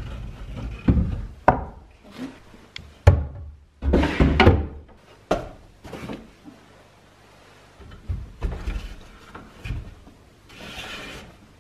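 Cordless power tools and a box knocking and sliding against the wooden cubbies of a pine shelf rack as they are set in place: a string of separate clunks and scrapes, a longer scrape about four seconds in, a few small clicks later, and a soft rubbing near the end.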